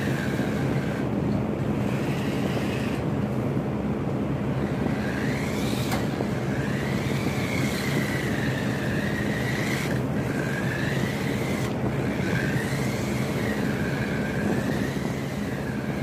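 Small electric remote-control car's motor whining, its pitch rising and falling as the throttle is worked, cutting out briefly a few times. A few sharp knocks along the way.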